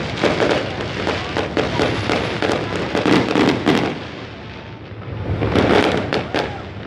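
Fireworks and firecrackers going off in rapid, overlapping cracks and bangs over a dense crowd din. The cracks thin out for about a second past the middle, then pick up again.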